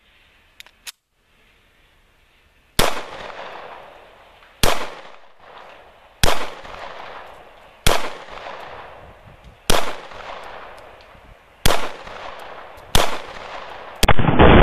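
Seven shots from a Canik TP9SF 9mm pistol, one every second and a half to two seconds, each ringing out after the crack. Near the end a hit sets off about a pound of low-velocity binary exploding target, a much louder blast that rumbles on.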